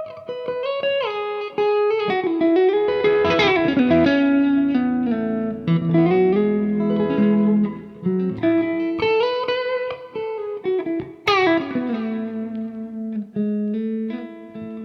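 1991 Ibanez Universe UV7P seven-string electric guitar played through its middle pickup alone: single-note melodic lines with slides between notes and some long held notes, with a sharply picked note about eleven seconds in.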